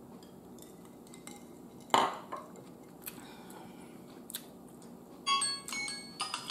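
A glass set down on a table with a single knock about two seconds in. From about five seconds, a run of light clinks with short ringing tones: dishes and cutlery on a plate.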